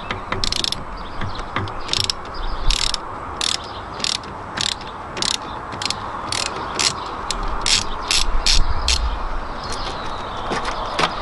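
Ratchet with a 10mm socket clicking in short bursts as it is swung back and forth to undo a battery terminal nut. About fifteen back-strokes, coming quicker after the first few seconds.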